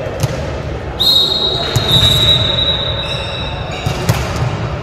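Volleyball impacts echoing in a gymnasium hall, with a sharp hit about four seconds in as the ball is tossed and served. A high, steady tone starts suddenly about a second in and holds for about three seconds.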